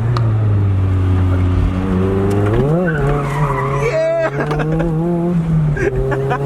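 Car engine running while driving, with a brief rise and fall in pitch about three seconds in before settling into a steady drone.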